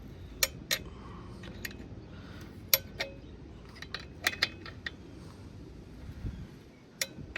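Wrench working a motorcycle's rear-axle chain adjuster bolts: a dozen or so sharp, irregular metal clicks and clinks, some ringing briefly.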